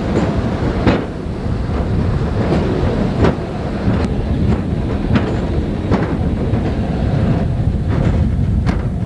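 Hi-rail truck running along railway track: a steady low rumble with sharp clicks at uneven intervals as its wheels pass over the rail joints.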